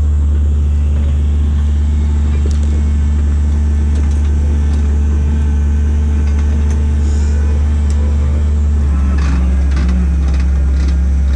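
A motor vehicle running with a loud, steady low drone that does not change.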